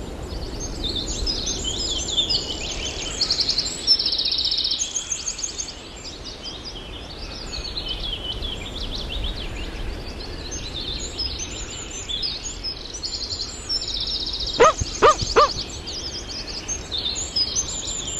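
A chorus of many small birds chirping and twittering. About two-thirds of the way through come three loud, short calls in quick succession, each rising and falling in pitch.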